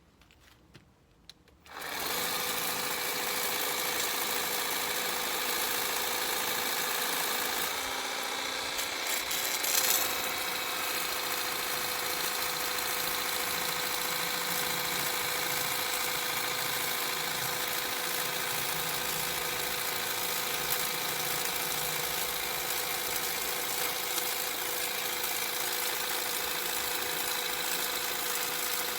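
Mernglow 300W cordless pressure washer starting up about two seconds in and running steadily, its battery-driven pump motor whining under the hiss of the water jet as it cleans patio slabs. Briefly louder about ten seconds in.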